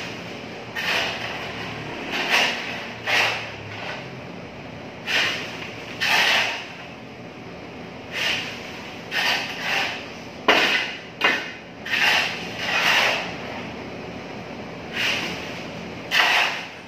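A shovel scraping into a pile of broken floor tile and mortar rubble and tipping it into a woven sack: a gritty scrape and rattle of rubble about once a second, in uneven strokes.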